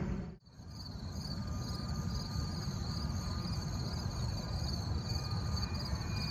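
Distant Boeing 737-300 jet climbing out after takeoff, its CFM56 engines a steady low rumble, with insects trilling steadily in a pulsing high chirr. The sound cuts out briefly about half a second in before the rumble begins.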